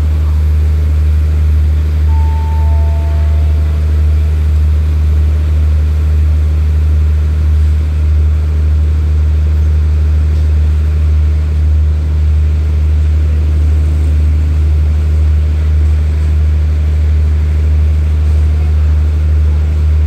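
Steady low hum of a stationary diesel train idling at the platform, running evenly without revving.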